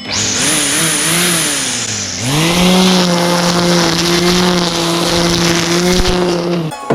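Electric brush cutter (string trimmer) running: its motor whine wavers at first and dips in pitch about two seconds in. It then climbs back and holds a steady pitch before cutting off suddenly near the end.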